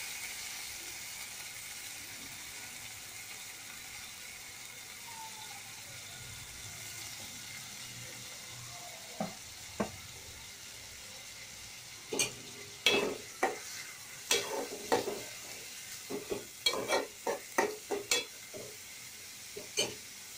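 Chopped onions, green chilli and curry leaves sizzling in hot oil in an aluminium pot, the sizzle dying down over the first several seconds. From about nine seconds in, a metal spoon stirs them, knocking and scraping against the pot again and again.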